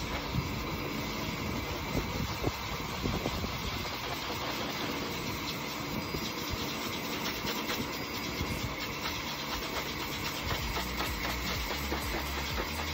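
Pet grooming vacuum running steadily, its motor humming as the hose nozzle is drawn through a thick double coat of dog fur.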